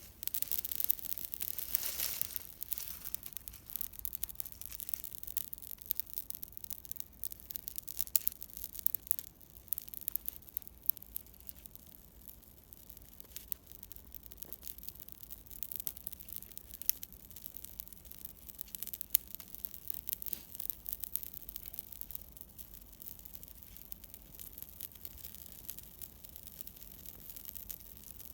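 Newly lit campfire crackling: a dense run of small, sharp pops over a soft hiss, loudest in the first few seconds, with scattered louder snaps.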